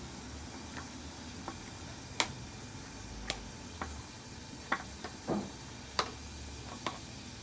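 About ten light clicks and taps at irregular intervals, the sharpest about two seconds in, as sugared turnip pieces are pressed in a strainer to squeeze out their juice.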